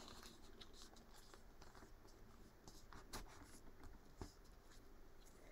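Near silence with faint rustles and a few soft taps of a paper net being folded and creased by hand.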